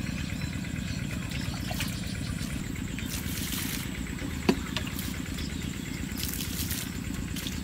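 Water being dipped and poured with a plastic dipper at a large water jar, splashing in two short bursts about three and six seconds in. A single sharp knock falls between them, over a steady low rumble.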